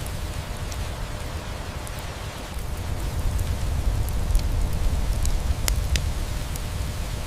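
Steady rain hiss with a low rumble, mixed with a wood fire crackling: scattered sharp pops, the loudest two close together late on.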